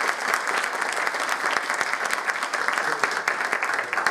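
Audience applauding: dense, steady clapping that begins to fade near the end.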